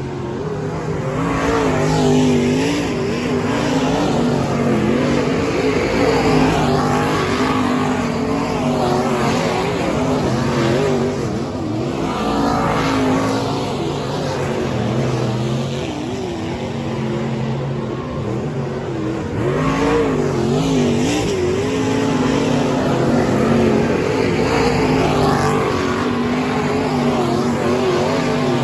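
Several dirt late model race cars' V8 engines running laps on a dirt oval, their pitch rising and falling as they circle the track and pass.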